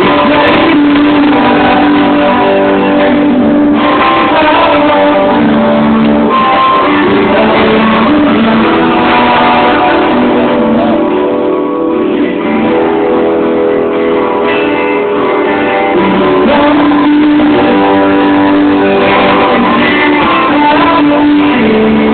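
Loud live band music led by guitars, playing steadily with no clear vocal line.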